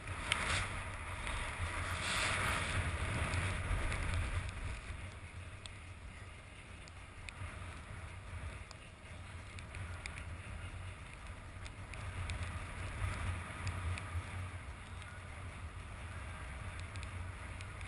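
Skis hissing and scraping over packed snow on a downhill run, with wind rumbling on the camera's microphone. The rush is louder in the first few seconds and swells again about three quarters of the way through.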